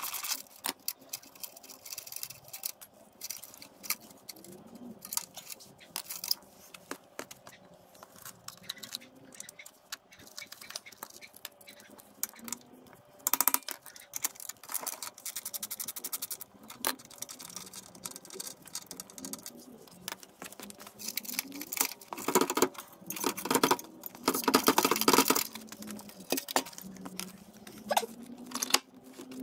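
Hand tools and metal parts clicking and clinking during scooter repair work, with scattered sharp knocks and a quick run of rapid clicks near the end.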